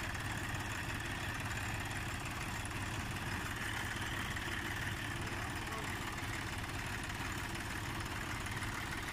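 Diesel tractor engine idling steadily.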